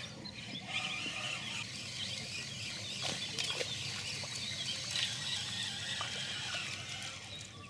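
Dense chorus of wildlife calls from the waterside reeds, busy overlapping chirping throughout.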